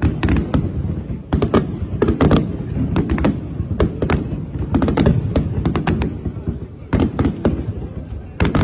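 Aerial fireworks display: a near-continuous barrage of sharp shell bursts, several bangs a second, over a steady low rumble.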